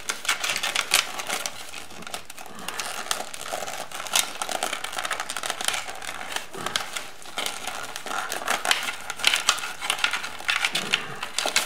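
Motorcycle wiring harness being handled and pulled through a metal headlight bucket: irregular rustling of wires and plastic loom, with scattered light clicks and ticks of connectors.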